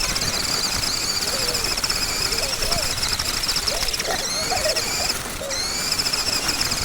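High-pitched whine of the Lego Technic go-kart's small RC buggy electric motor as it runs, wavering with speed, cutting out briefly about five seconds in and then rising again as it picks up.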